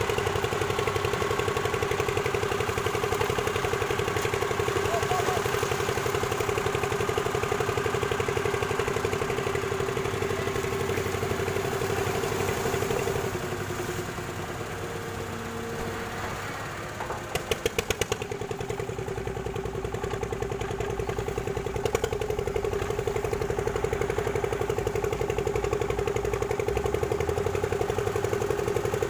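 Excavator's diesel engine running steadily. It drops in level for a few seconds midway, followed by a brief rapid clatter, then runs on as before.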